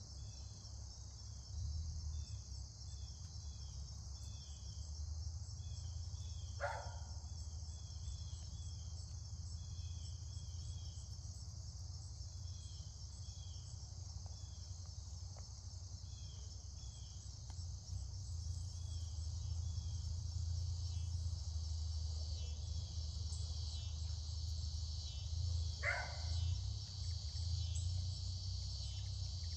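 Crickets and other insects chirring steadily in a continuous chorus, over a low steady hum. Two brief, sharp sounds stand out, about seven seconds in and again near the end.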